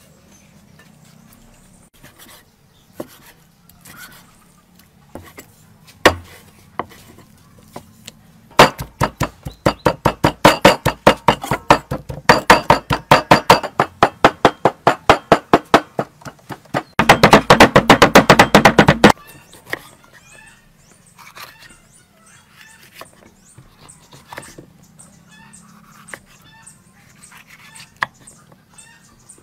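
Cleaver chopping raw pork on a wooden chopping block: a steady run of sharp chops about five a second, then a short burst of very fast chopping as the meat is minced, with lighter knife taps before and after.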